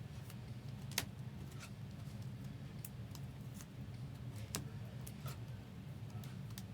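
Trading cards being handled and sorted: scattered light clicks and taps, the sharpest about a second in, over a steady low hum.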